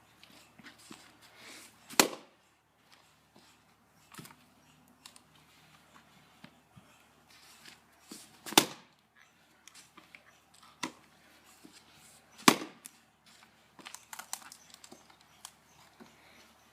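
Axe strikes splitting firewood: three loud, sharp blows several seconds apart, with a few lighter knocks of wood between them.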